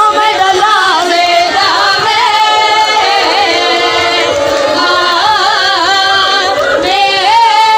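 A woman's voice singing a slow, wavering lament in a majlis recitation, the melody bending up and down without a break.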